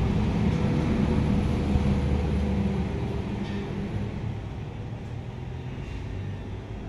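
Kubota ZL1-315 tractor's diesel engine idling steadily, a low even hum that grows somewhat fainter after about three seconds.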